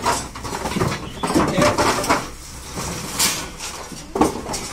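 Wooden poles and junk being shifted by hand: a series of knocks and rattling clatters as sticks and objects bump together.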